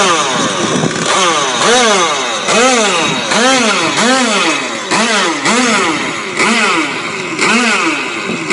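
Puch Maxi Sprinter moped's small single-cylinder two-stroke engine running on its first start, revved up and let fall back over and over, a little more than once a second, in a rising-then-falling buzz.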